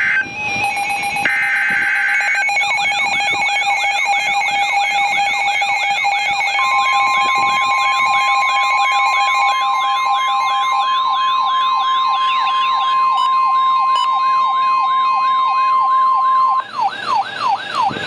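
Midland NOAA weather radio sounding an emergency alert for a severe thunderstorm warning: a short burst of SAME data tones, then the receiver's siren wailing in fast, evenly repeated rising sweeps. About six seconds in, the steady 1050 Hz NOAA Weather Radio warning tone joins and holds for about ten seconds.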